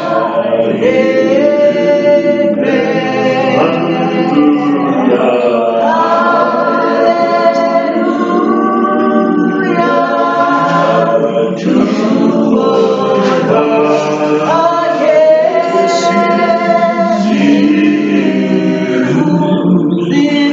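A church congregation singing a gospel song together, many voices at once.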